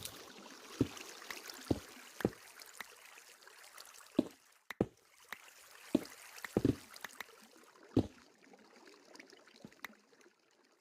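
A series of short knocks or taps at irregular intervals, about eight in all, over a faint steady hiss.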